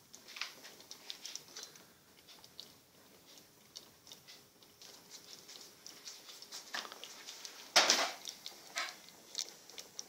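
Scattered soft clicks and ticks from a stainless steel pot of congee being stirred with a metal ladle, with one louder clatter about eight seconds in.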